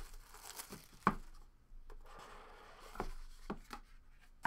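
Plastic shrink wrap being peeled off a trading card box and crinkling in the hands, with a few short knocks as the box is handled, about a second in and twice around three seconds in.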